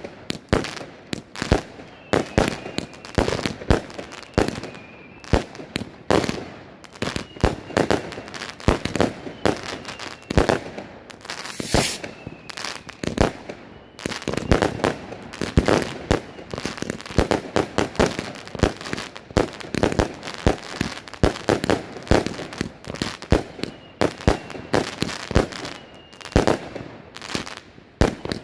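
Pinto 'Sydney' compound firework cake (25–30 mm calibre shots) firing a rapid, unbroken string of launches and aerial bursts, several a second. One sharper bang stands out about twelve seconds in.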